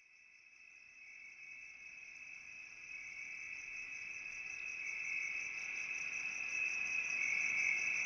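Crickets trilling in one steady, high chirr, fading in gradually from silence.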